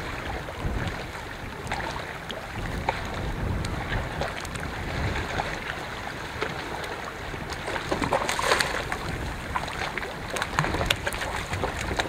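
Wind buffeting the microphone over gently lapping water at a rocky shoreline, with small splashes as gentoo penguins hop into the shallows and a louder splash about eight seconds in.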